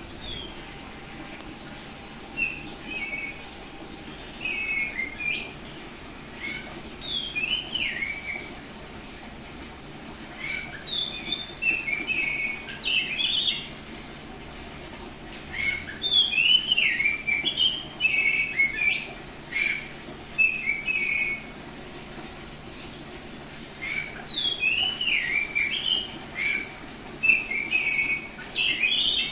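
Oriental magpie-robin (Kacer Bali) singing in repeated bouts of quick, varied whistled phrases, each a few seconds long with short pauses between.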